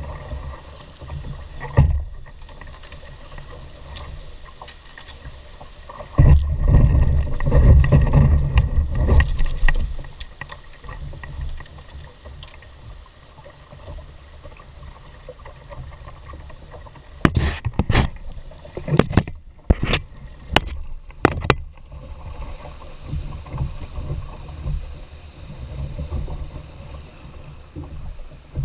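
Fast, flooded creek water rushing around a canoe, with wind buffeting the microphone in a louder stretch about a third of the way in. About two-thirds through comes a quick run of half a dozen sharp knocks.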